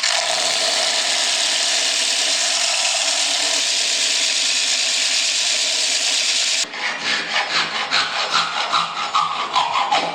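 A tool cutting into wood, loud and steady for about six and a half seconds. Then it breaks into rapid rough strokes with a falling whine, which stop abruptly near the end.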